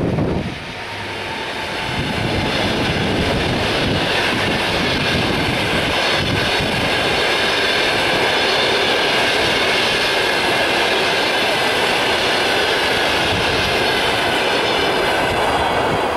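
Passenger coaches of an express train rolling past at speed behind an EP1M electric locomotive: a steady rumble and clatter of wheels on the rails, with faint wavering high tones over it. The sound eases slightly right at the end as the last coach goes by.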